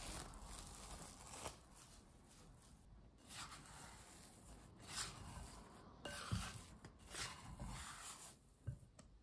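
Cling film rustling off a glass bowl, then a plastic dough scraper scraping and rubbing soft bread dough away from the bowl's glass sides in several strokes, with a couple of soft thumps as the dough is turned.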